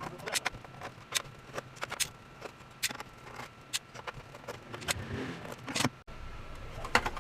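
Irregular sharp clicks and taps, a few a second, over a faint steady high tone. About six seconds in the sound cuts out for an instant, and a low steady hum sits underneath after that.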